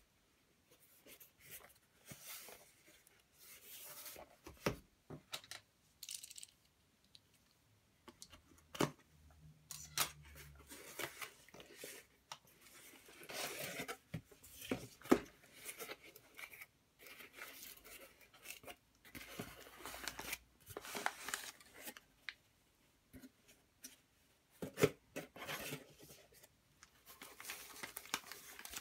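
Cardboard shipping box torn open by hand: tearing, scraping and sharp clicks in irregular bursts, then foam packing wrap rustling near the end.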